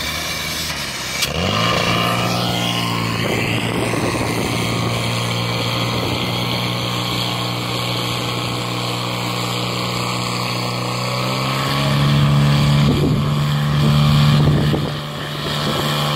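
Portable fire pump engine revving up about a second in, then running at a steady high speed, its pitch stepping up again near the end.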